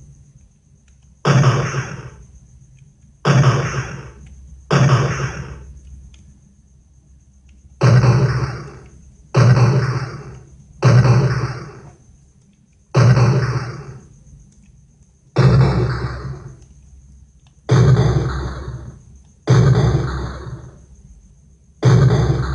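Gunshot sound effects: about eleven single shots, one every one and a half to three seconds, each starting sharply and dying away over a second or so, with a faint steady high tone underneath.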